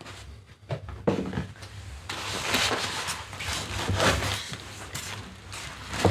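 Unboxing handling noise: cardboard and packing material scraping and rustling as the fountain parts are handled, with a few sharp knocks, one about a second in and another near the end.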